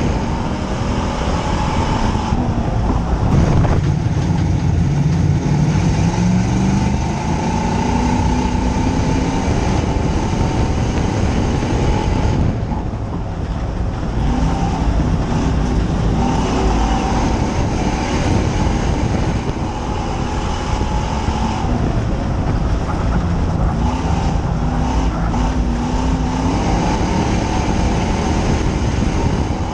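Dirt-track stock car's engine running hard, heard from inside the cockpit during a race. The engine note rises and falls, dipping briefly a few times.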